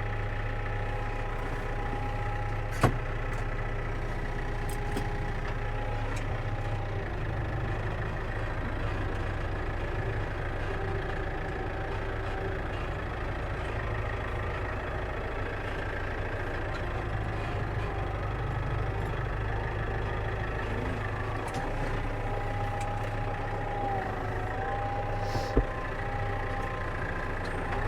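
Tractor engine running steadily while still warming up from cold. Two sharp clicks stand out, one about three seconds in and one near the end.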